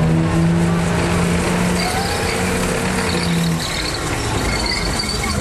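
Engine of a tracked self-propelled gun running with a steady low note. The note fades after about three and a half seconds.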